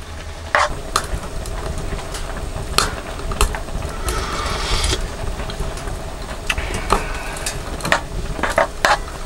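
Spoon stirring in a frying pan on a portable gas stove, clinking irregularly against the pan, over a steady low hum.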